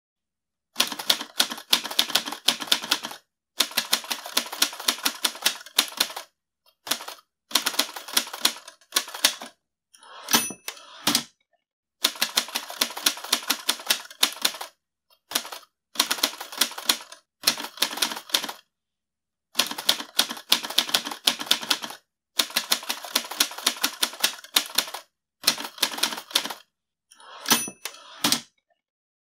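Old manual typewriter being typed on in quick bursts of key strikes with short pauses between them. About ten seconds in and again near the end, a single ringing tone sounds with a sliding mechanical rasp, like the margin bell and a carriage return.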